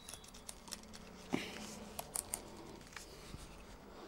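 beyerdynamic Aventho on-ear headphones being handled and adjusted: faint, scattered clicks and small knocks as the ear cups and headband parts are moved, with a sharper click about a second and a half in.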